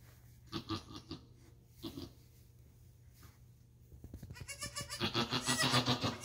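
Doe goat in labour bleating: a few short calls in the first two seconds, then a long, loud, wavering cry from about four seconds in as she pushes out her second kid.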